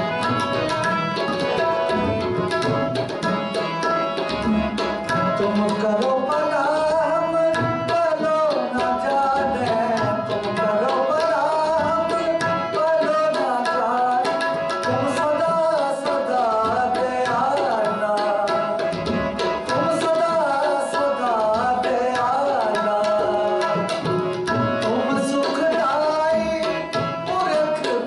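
Kirtan on a Nagi harmonium with tabla: the harmonium holds steady chords while the tabla plays a quick, continuous rhythm. From about six seconds in, a wavering sung melody joins.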